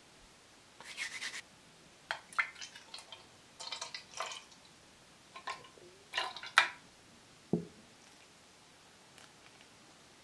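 Floury hands rubbing butter into flour in a glass bowl: irregular short rustling, scraping bursts. Later, milk is poured into a plastic measuring jug, followed by a single dull knock.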